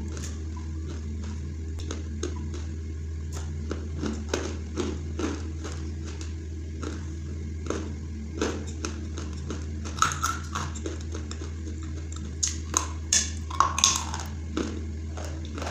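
Close-up chewing of dry white khadi clay: a run of crisp crunches and clicks, with louder, sharper bites about ten seconds in and again near the end, over a steady low hum.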